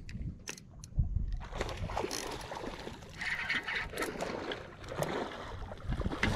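Spinning reel being cranked in short spurts while a hooked striped bass is played on rod and line, with water sloshing and wind on the microphone. A low thump comes about a second in and again near the end.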